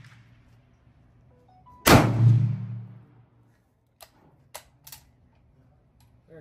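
A single shot from an M1 carbine firing .30 Carbine ammunition about two seconds in, with a low boom that fades over about a second, followed a couple of seconds later by three short, sharp clicks.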